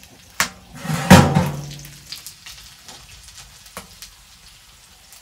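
Metal knocks from a pan being handled at a wood stove's oven: a sharp knock, then a louder clank about a second in with a short tone that dies away, followed by a few faint clicks.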